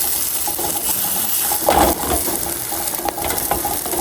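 Couscous sizzling as it heats through on a titanium plate over a campfire, a steady hiss with small clicks and one louder brief scrape just under two seconds in.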